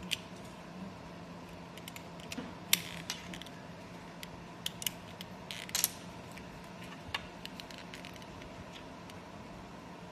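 Small metal airbrush parts clicking and scraping as they are handled and fitted onto the front of the airbrush by hand: irregular light clicks, with a few sharper ones, over a faint steady hum.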